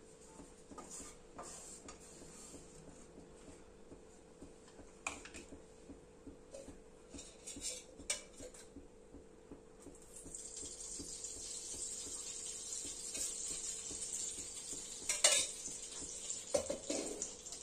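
A spoon clinking and scraping in a pan as dry fruits are stirred and roasted in ghee, in scattered knocks and clicks with one louder knock near the end. A steady hiss joins about ten seconds in.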